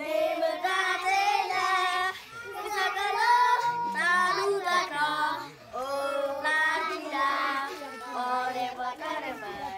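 A group of children singing a song together, with short breaks between lines.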